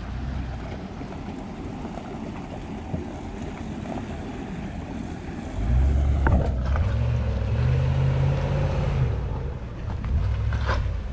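Lexus LX470's V8 engine running at low revs as the SUV crawls through a shallow creek crossing, getting much louder a little past halfway as it comes up close, with the tyres splashing through the water. A creek trickling over rocks runs underneath.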